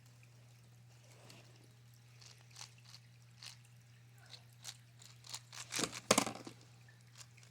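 A Rubik's cube being turned quickly in a solve: irregular plastic clicks and scrapes of the layers, thickening into a quick flurry of turns about six seconds in.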